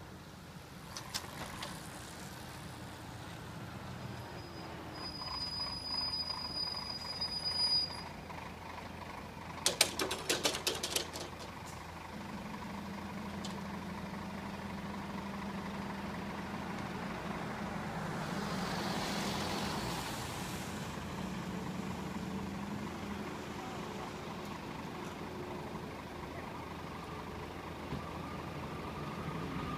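Sounds of a railway level crossing with its warning lights on and its half-barriers lowering, the train not yet arrived. Faint steady background noise, a thin high tone for about three seconds, a quick clatter of clicks about ten seconds in, and a low steady hum from about twelve seconds on.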